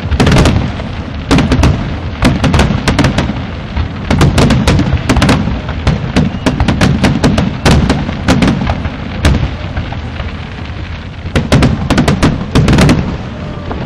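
Fireworks display exploding: a dense run of sharp bangs and crackles, several a second, over a steady low rumble of shells bursting, very loud.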